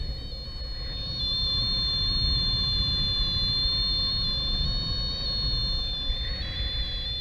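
Strong wind buffeting the microphone as a steady low rumble that swells about a second in, with a thin high whistle whose pitch shifts in small steps.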